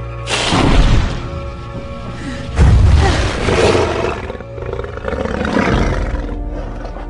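A sound-designed dragon roaring, three loud, rasping roars a couple of seconds apart, over a sustained dark orchestral score.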